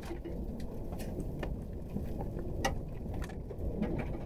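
Inside the cab of the F-150 Lightning Switchgear electric truck driving over a rough grass field: a steady low rumble of tyres and suspension, with scattered sharp knocks and rattles.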